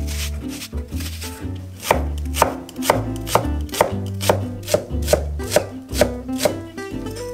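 Kitchen knife chopping a halved green onion on an end-grain wooden cutting board: an even run of about eleven knocks, roughly two a second, starting about two seconds in. Soft background music plays underneath.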